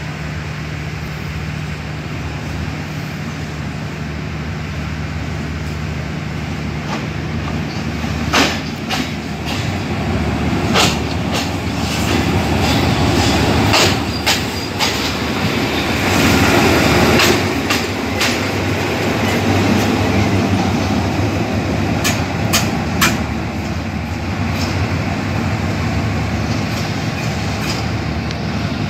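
SRT Hitachi diesel-electric locomotive running past: a steady engine drone grows louder as it draws near, is loudest about midway, and eases off as it moves away. A series of sharp clacks comes as its wheels cross rail joints.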